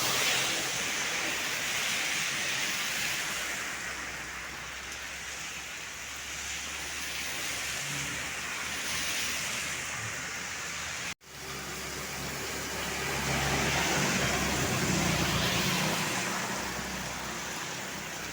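Road traffic going past: tyre and engine noise swelling and fading as vehicles pass one after another, with more low engine hum in the second half. The sound cuts out abruptly for an instant about eleven seconds in.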